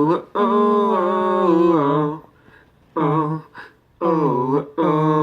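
A man's voice singing a wordless melody unaccompanied, in several held phrases whose pitch slides down and back up. A long phrase runs through the first two seconds, followed by shorter ones after a brief pause.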